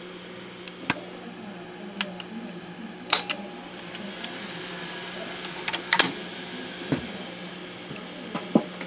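The open tape transport of a JVC BR-S611 S-VHS broadcast VCR running on a cassette: a steady hum with irregular sharp mechanical clicks and clunks, the loudest about three and six seconds in.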